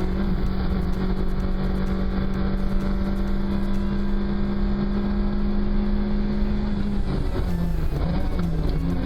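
Rally car engine held at steady revs for several seconds, then its revs rising and falling from about seven seconds in.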